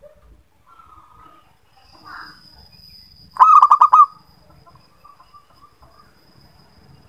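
Zebra dove (perkutut) calling: a quick run of about five loud coos a little over three seconds in, with softer short calls before it. A faint, thin high tone runs behind from about two seconds in.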